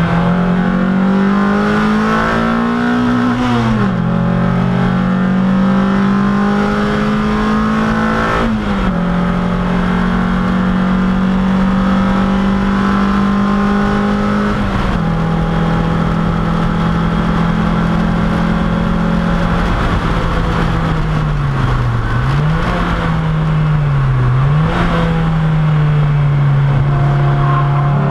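Race car engine heard from inside the stripped, caged cabin under hard acceleration. The revs climb and drop sharply at upshifts about 3.5 and 8.5 seconds in and again near 15 seconds. Later the revs fall twice, with a brief rise between, during downshifts, then pull up and hold steady, all over constant wind and road noise.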